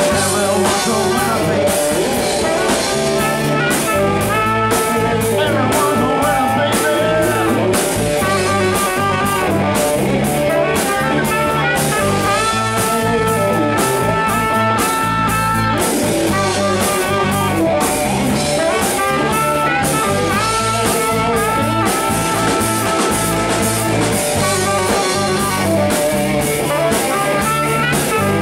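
Live rock band playing, with electric guitar over bass guitar and a drum kit keeping a steady beat.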